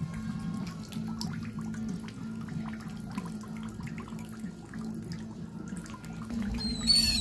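Water lapping and dripping in small splashes over a steady low hum. A bird squawks briefly near the end.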